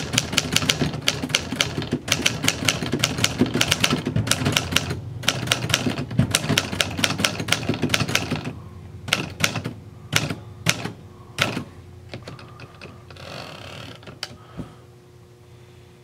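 Keystrokes on a 1957 Remington Quiet Riter manual portable typewriter: a fast run of typebar strikes that thins to a few separate strokes around nine to eleven seconds in. Near the end the carriage is returned, a short sliding rasp ending in a knock.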